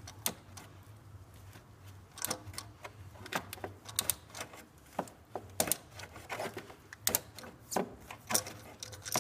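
A ratchet handle on a claw-type oil-filter wrench clicking in short, irregular runs as it is worked back and forth to break loose an oil filter that is done up very tight.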